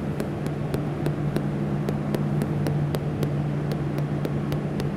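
Small cheese hammer tapping rapidly across the rind of a ripened Bergkäse wheel, about three to four light taps a second, over a steady low hum. The cheesemaker is listening for a dull sound, the sign of holes (eyes) inside the cheese.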